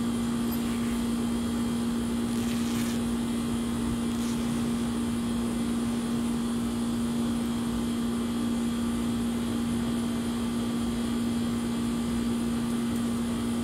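Steady machine hum holding one constant low pitch, with an even hiss behind it.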